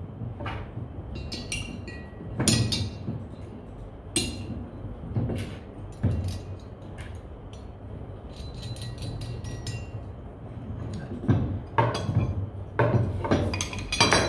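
Steel ridging blades of a Mitsubishi TL655MS ridger clinking and knocking against the metal blade hub as they are slotted in by hand. The knocks are irregular, with a quick flurry of small ticks around the middle and several louder knocks near the end.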